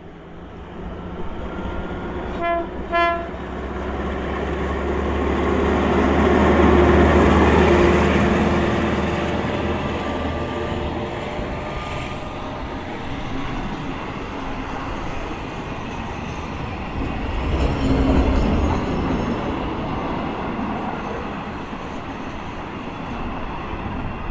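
A train passing on the line: two short horn toots about two and a half seconds in, then the train's rumble swelling to its loudest a few seconds later, with a low engine drone that fades out about halfway through, and the wheels running on over the rails.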